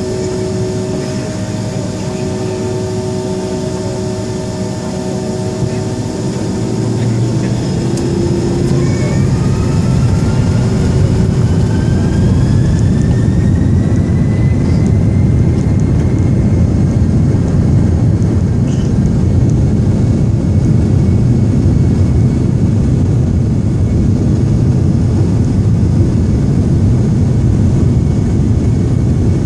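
Airliner jet engines heard from inside the cabin: a steady hum at first, then, about eight seconds in, a rising whine as the engines spool up to takeoff thrust. This gives way to louder, steady engine noise and rumble during the takeoff roll.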